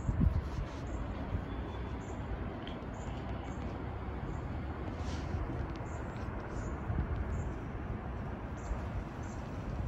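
Steady, distant rumble of an aircraft flying high overhead, with faint short high chirps of small birds scattered through it.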